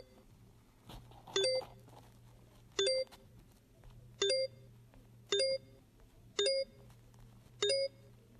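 Short electronic two-note chime from a phone color-blind test game, sounding six times about a second apart as each correct circle is tapped and the next level comes up.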